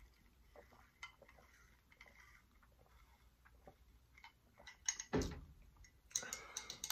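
Quiet sipping of a drink through a straw, with faint mouth clicks. About five seconds in, a glass mug is set down with a knock, followed by wet mouth sounds.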